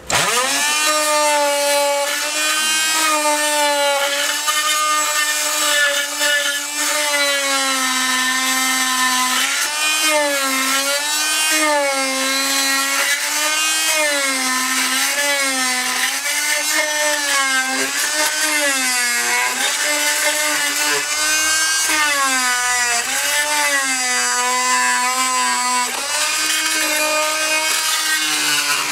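Chicago Electric oscillating multi-tool with a carbide tile and masonry blade, switched on suddenly and grinding into the mortar under an old floor tile to free it. A steady high whine whose pitch dips and recovers every second or so as the blade bites and eases off.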